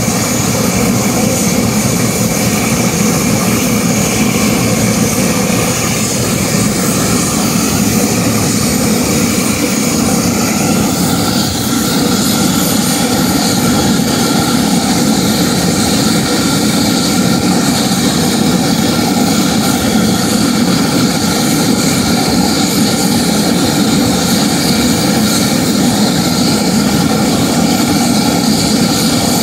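Bell Boeing V-22 Osprey's Rolls-Royce AE 1107C turboshaft engines running during warm-up on the ground, a steady loud turbine whine over a dense rumble.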